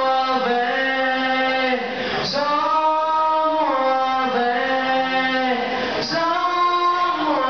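A young man singing solo into a handheld microphone, amplified in a hall. He holds long notes in phrases of about two seconds, each phrase stepping to a new pitch.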